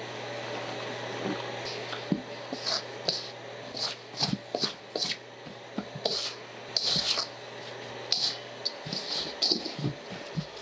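Flour being worked into a large batch of bread dough: irregular scrapes, taps and handling sounds in a bowl. A steady low hum underneath stops about nine seconds in.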